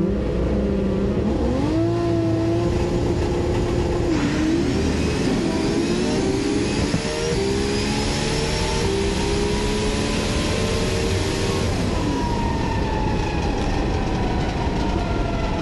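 Drag race car's engine running, heard from inside the cockpit. A whine climbs slowly in pitch and falls away about twelve seconds in, and a hiss comes in about four seconds in.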